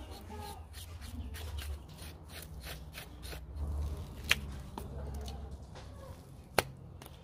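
A knife blade scraping the charred skin off a burnt sheep's hoof in short repeated scratchy strokes, with two sharp clicks, one a little past the middle and one near the end.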